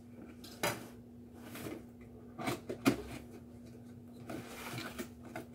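A cardboard figure box being handled and opened on a wooden table: a few knocks and scrapes of cardboard, the loudest about three seconds in, then a soft sliding rustle as the inner packaging comes out. A faint steady hum sits underneath.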